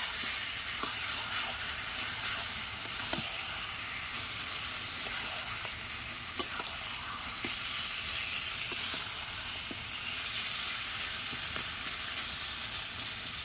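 Duck meat pieces sizzling in spice paste in a metal wok, stirred and turned with a metal spatula to coat them in the masala. The sizzle is steady, with a few sharp clicks.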